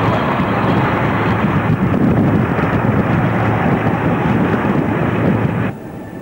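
Loud road and wind noise from a car on the move, with wind blowing on the microphone and a steady low engine hum underneath; it cuts off suddenly near the end.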